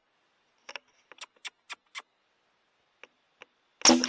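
A run of light clicks, then one sharp, very loud rifle shot near the end with a short ringing tail.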